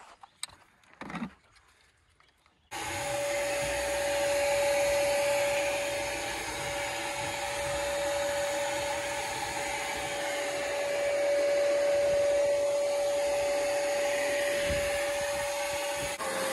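Shop vac running with a steady whine over rushing air, starting abruptly about three seconds in and stopping near the end. Before it starts there are only a few faint knocks.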